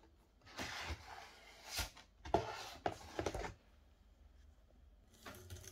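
Stiff card packaging being handled in a moulded pulp tray: scraping and rustling in bursts, with a few sharp clicks, for about three seconds, then once more briefly near the end.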